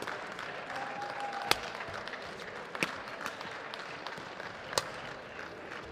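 Badminton rackets striking the shuttlecock in a rally: sharp hits about every one to two seconds, the loudest near the end, over a steady hall murmur. A short squeak sounds about a second in, just before the first hit.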